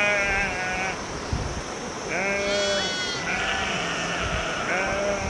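Sheep bleating in a flock, several calls about a second long following one another and partly overlapping, with one higher-pitched bleat about halfway through.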